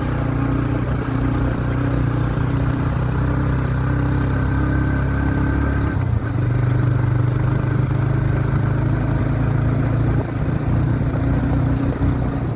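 A vehicle engine running steadily while travelling, with its note shifting and growing a little louder about halfway through.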